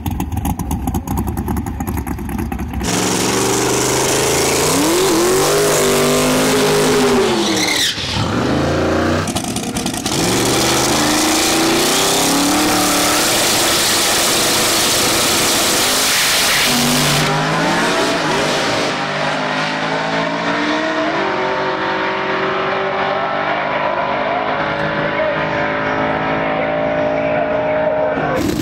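High-horsepower drag race car engines. A rapid, rough crackle at first, then revving in rising and falling sweeps. About ten seconds in a long, loud full-throttle run with heavy rushing noise begins, and in the last stretch one steady, high engine note holds and climbs slowly as the car runs down the strip.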